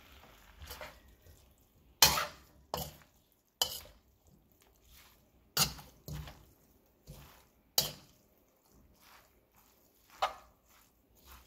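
A metal spatula knocking and scraping against a wok while tossing noodles and vegetables, with about eight sharp clacks at irregular intervals.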